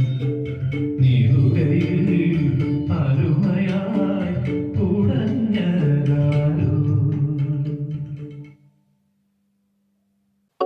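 Music with singing, guitar and bass, fading out and stopping about two seconds before the end.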